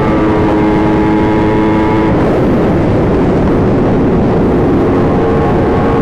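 Yamaha R1 inline-four sportbike engine running at a steady pitch. After about two seconds a loud rushing noise covers it, and near the end the engine tone comes through again, slowly rising.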